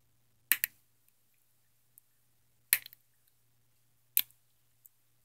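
Three sharp snaps or cracks about a second and a half apart, the first one doubled, with a fainter click near the end.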